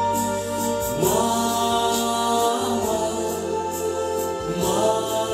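A sung ballad over a backing track: long, held choir-like vocal notes over a light steady beat, moving to new notes about a second in and again near the end.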